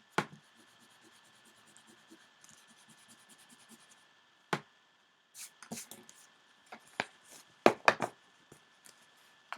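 A rubber eraser rubbing faintly over paper for the first few seconds, then sharp clicks and taps as pens and markers are handled and set down on the desk. The loudest is a quick cluster of taps near the end.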